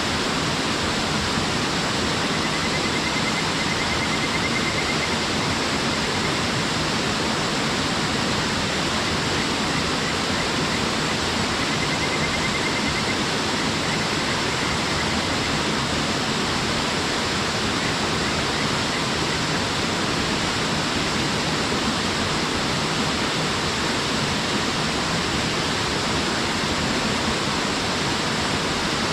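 Waterfall pouring steadily: a constant, even rushing of falling water.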